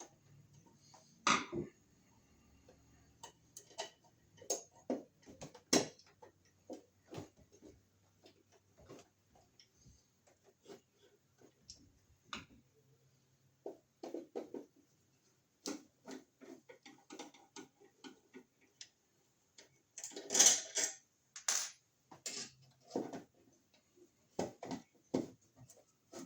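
Scattered small clicks, taps and knocks of hand tools and electrical hardware being handled, with a louder cluster of knocks about 20 seconds in.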